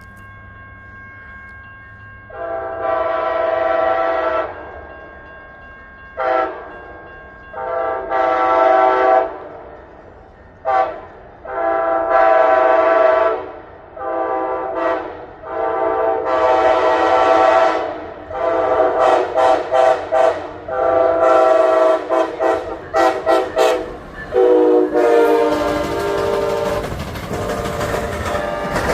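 Amtrak passenger locomotive's air horn sounding a long series of blasts, long and short mixed, then a quick run of short toots. In the last few seconds the train passes with a rumble of wheels on the rails.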